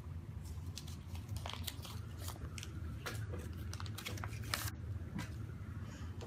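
Small plastic packet and parts of a Kinder Surprise egg toy being unwrapped and handled by hand: a run of quick, irregular crinkles and clicks over a low steady hum.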